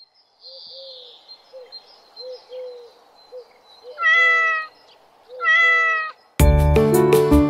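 A cat meows twice, two drawn-out meows about a second and a half apart, over a faint background of short, low chirps. Near the end the rhyme's music starts loudly.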